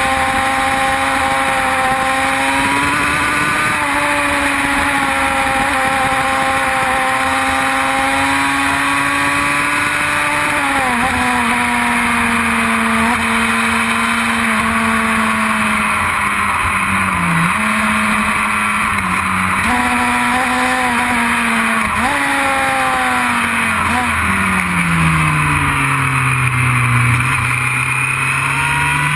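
Racing motorcycle engine at speed, heard from a camera mounted on the bike. The engine note holds high, drops in short steps with gear changes around the middle, falls low about three quarters through as the bike slows, and starts climbing again near the end.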